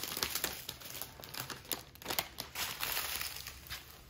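Clear plastic wrapping crinkling as it is handled and pulled off a strip of bagged diamond painting drills, a run of crackles that thins out and grows fainter toward the end.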